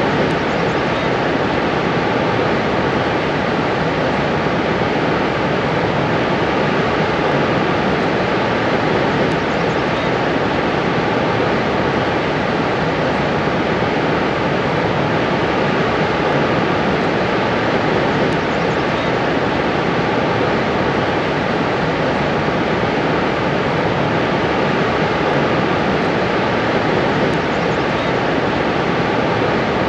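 Niagara Falls: a loud, steady roar of water plunging and churning over rocks.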